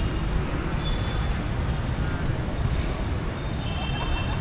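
Steady city street traffic: a continuous low rumble of passing vehicles, with a couple of brief faint high tones.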